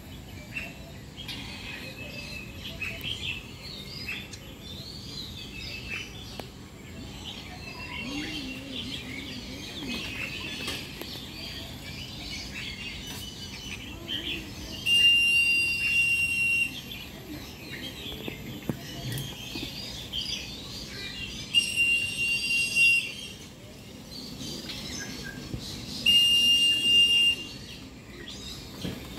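Many aviary songbirds chirping and calling, broken three times in the second half by a loud, long, steady whistle note about a second and a half long: the keeper's whistle signal calling the birds down to feed.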